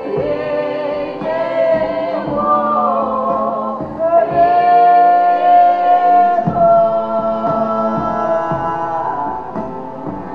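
Live Ukrainian folk band music: several voices sing long held notes in close harmony over a steady low cello drone, with a drum keeping the beat. The voices swell and are loudest around the middle.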